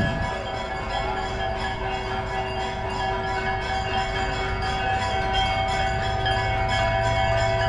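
Bells ringing continuously, several overlapping steady tones sounding together, with a low hum that grows stronger about six seconds in.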